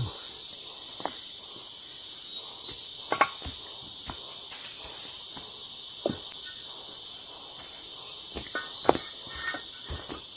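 Steady high-pitched chorus of night insects such as crickets, with a few scattered knocks and thuds over it.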